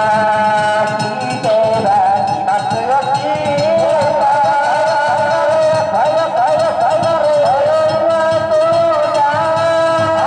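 Danjiri festival music: a long, wavering sung pulling song (hiki-uta) over steady strikes of the float's hand gongs and drum.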